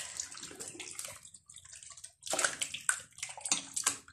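Hands squelching and sloshing whole chickens through a liquid chermoula marinade of oil, butter and herbs in a large metal pot: irregular wet squishes, a pause about a second and a half in, then busier again toward the end.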